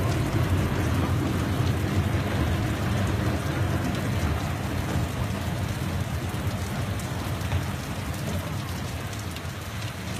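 Heavy rain pouring down on a street, a steady hiss with a strong low rumble under it, easing slightly toward the end.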